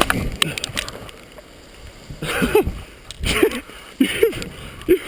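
A man's short strained grunts and heavy breaths, about one a second from about two seconds in, as a parachutist struggles in his harness hanging in a tree. A brief crash of branches with wind noise on the helmet microphone comes right at the start.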